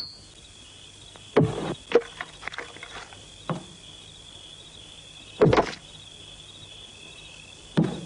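An axe chopping firewood on a block: three heavy blows about four seconds apart, with smaller knocks and clatter of split wood after the first. A steady chorus of crickets chirps throughout.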